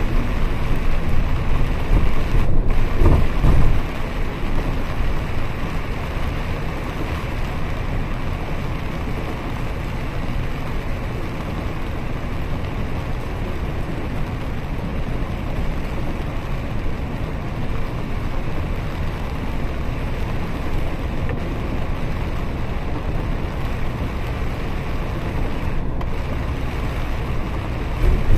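Inside a double-decker bus driving through heavy rain: a steady low rumble of engine and tyres on the wet road, mixed with the hiss of rain on the bus. It is louder for the first four seconds or so.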